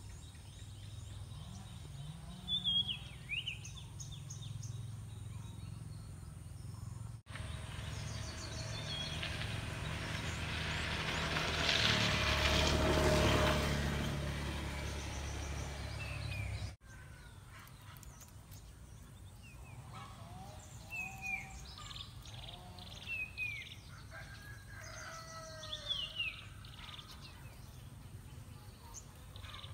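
Garden ambience with small birds chirping in short, falling calls over a low steady hum. In the middle, between two abrupt edits, a broad rushing noise swells and fades.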